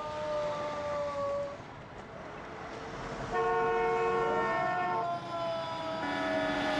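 A man's long, drawn-out yell, slowly falling in pitch, dies away about a second and a half in over the noise of passing street traffic. Then a car horn sounds, held for over a second, twice, the second time with the man yelling again over it.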